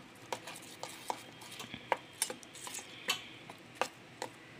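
A metal spoon stirring thick ground chutney in a stainless steel bowl, with irregular light clicks as the spoon knocks against the bowl.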